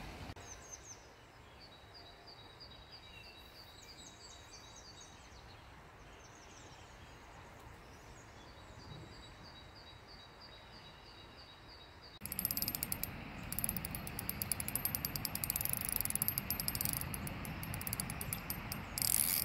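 Quiet river ambience: faint running water with small birds chirping. About twelve seconds in it turns to a louder rushing noise with a fast run of fine clicks from a Piscifun Honor spinning reel being handled, which lasts until just before the end.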